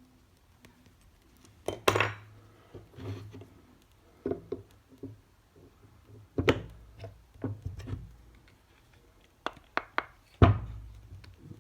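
Dental lab hand tools clinking and knocking on hard surfaces while a wax bruxism splint is sculpted: a series of sharp knocks and lighter ticks at irregular intervals, the loudest near the end.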